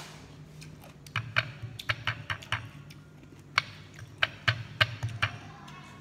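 A run of irregular sharp clicks and light taps, more than a dozen between about one and five seconds in, over a faint low steady hum.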